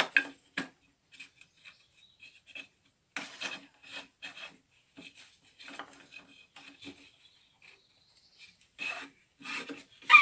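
Old hand-cranked drill boring a dowel hole into hardwood floorboard, the bit rasping through the wood in short irregular strokes as the handle turns. A few sharp clicks at the start and a louder knock near the end.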